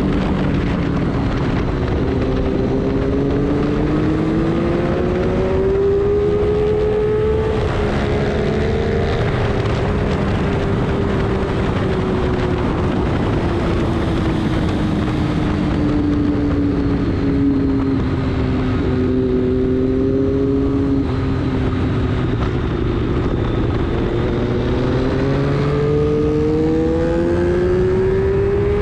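Vehicle engine under way on a track lap: the engine note climbs over the first few seconds, sinks slowly through the middle and climbs again near the end as it speeds up and slows, over a steady rush of wind and tyre noise.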